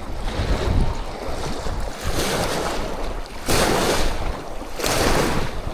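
Wind buffeting the microphone, with reservoir water washing against the bank in rising and falling swells.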